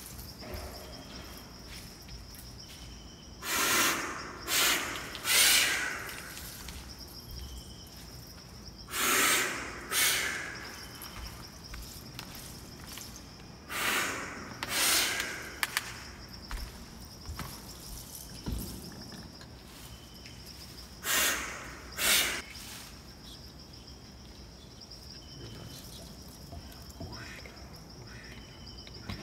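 A shaman blowing mouthfuls of liquid as a fine spray: about nine short, forceful hissing sprays, mostly in pairs, through the first two-thirds. Birds chirp faintly behind.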